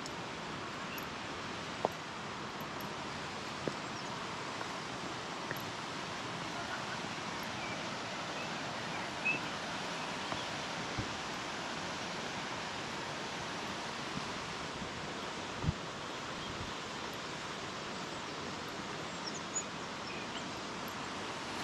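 Steady rush of river water running over a small weir and rapids, with faint bird chirps and a few soft knocks.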